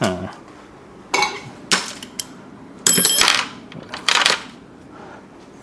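Metal hand tools clanking and clinking in a steel tool-chest drawer as someone rummages through it: about five sharp clatters, the loudest, about three seconds in, ringing briefly.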